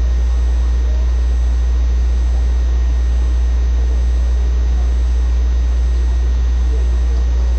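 A loud, steady low hum with faint hiss over it, unchanging throughout; no other sound stands out.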